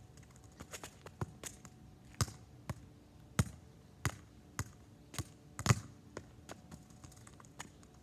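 A football being tapped and dribbled between a child's feet on an asphalt street: a run of irregular light taps and thuds from ball and shoes, two or three a second, with a few louder kicks midway.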